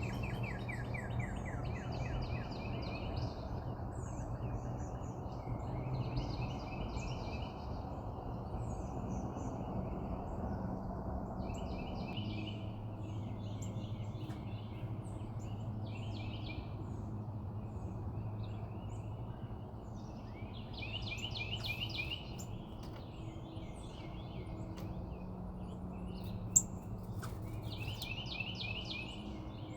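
Backyard songbirds chirping and singing in short, rapid trilled phrases, repeated again and again, over a steady low background hum. A single sharp click comes near the end.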